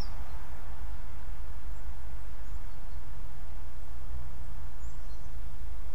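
Woodland ambience: a steady low rumble with faint, short high bird chirps, about two and a half seconds in and again near five seconds.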